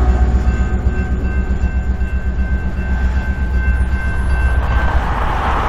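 Diesel freight locomotives running with a heavy, steady low rumble, with faint steady high-pitched tones over them. Near the end a rushing noise of rolling railcars rises.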